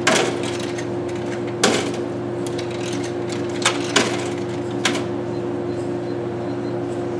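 Vending machine humming steadily while it is used to buy a snack, with five sharp clicks and knocks in the first five seconds as it is operated.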